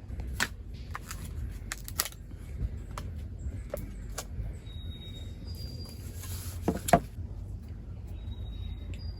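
Scattered clicks and knocks of camp cooking gear and packages being handled, with one louder knock about seven seconds in, over a steady low rumble.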